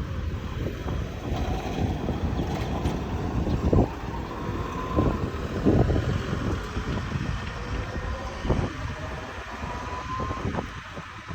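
Wind buffeting the microphone, with a passing vehicle whose faint whine slowly rises in pitch.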